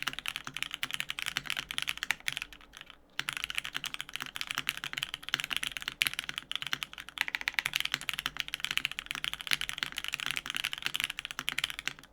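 Fast typing on a custom FMJ80 mechanical keyboard with lubed Cherry MX Black linear switches on an aluminium full plate and GMK keycaps: a steady stream of key clacks, broken by a short pause about three seconds in.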